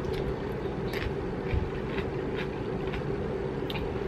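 Electric fan running with a steady hum and whir. A few faint crunches of someone chewing a mini pickle come through it.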